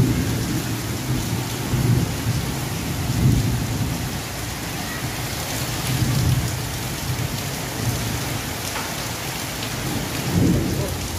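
Heavy rain pouring steadily onto corrugated tin roofs and trees, with a low rumble that swells and fades every few seconds.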